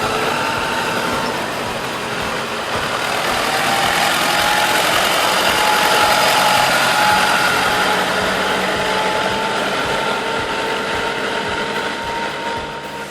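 Heavy off-road vehicle engine running steadily, with a faint whine over it, growing a little louder midway.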